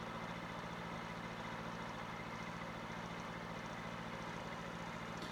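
An engine idling steadily, with an even low throb.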